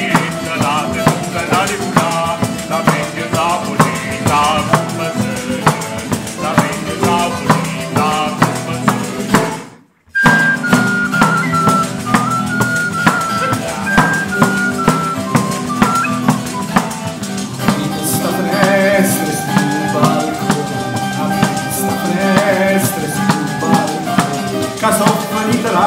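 Instrumental break of southern Italian folk music: a large tambourine beats a steady rhythm over strummed twelve-string guitar and mandolin. After a brief dropout about ten seconds in, a small wooden flute plays a stepping melody over the rhythm.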